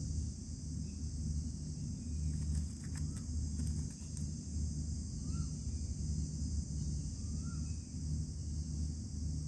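Steady high-pitched drone of an insect chorus over a low rumble that pulses on and off, with a few faint short chirps about five and seven and a half seconds in.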